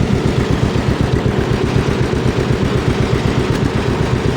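John Deere 70's two-cylinder engine running steadily with an even, rhythmic pulsing beat.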